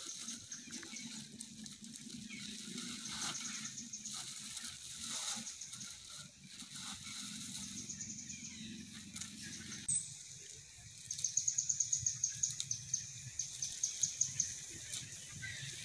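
Outdoor ambience with high-pitched, rapidly pulsing chirping that comes in spells, most strongly and evenly from about eleven seconds in.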